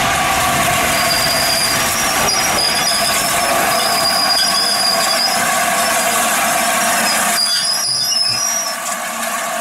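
LNER A4 steam locomotive 60007 Sir Nigel Gresley standing in steam: a loud, steady hiss with high thin squealing tones over it. The lower part of the hiss drops away about seven and a half seconds in.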